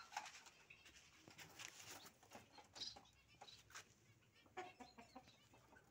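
Near silence: faint scattered rustles and light clicks from a hand reaching into a wooden, wire-fronted dove cage.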